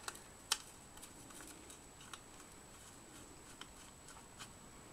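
Faint clicks and ticks of a Phillips screwdriver turning small screws that fix an SSD to a PCIe adapter card, with one sharper click about half a second in.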